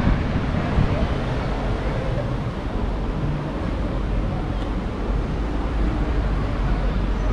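Steady outdoor street ambience with a constant low rumble, typical of wind buffeting the microphone of a camera carried while walking.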